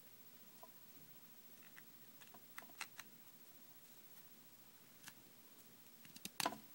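Scattered faint clicks and taps, with a louder cluster of sharp knocks about six seconds in.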